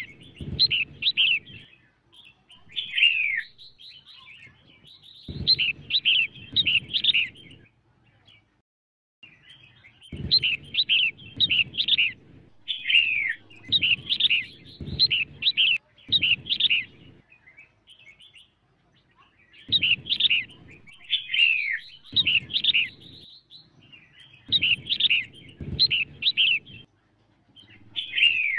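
Red-whiskered bulbul song, given as a female's call used to rouse male bulbuls to sing. It comes in repeated bursts of quick, bright chirps, some ending in a downward slur, with short pauses between bursts. A low rumble on the recording underlies each burst.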